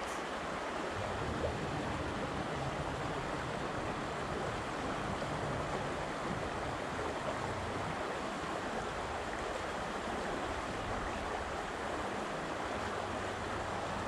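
Steady rushing of a shallow, rocky creek's flowing water.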